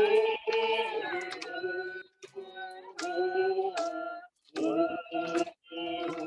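Voices singing a song in a high register, holding notes for about a second at a time, with short breaks between phrases.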